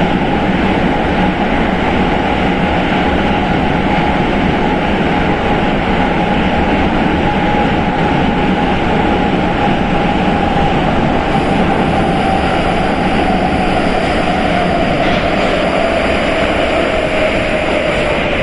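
Prague Metro 81-71M train running through a tunnel: a loud, steady rumble of wheels and running gear with a whine that slowly slides lower in pitch from about ten seconds in as the train slows. Faint high whistling tones join near the end.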